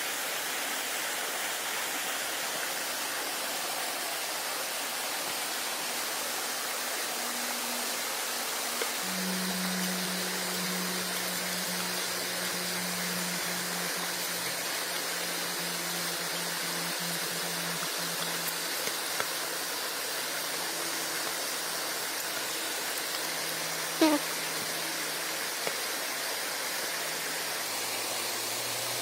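Steady rushing of flowing water, with a faint low hum for a stretch in the middle and a brief sharp sound with a falling pitch near the end.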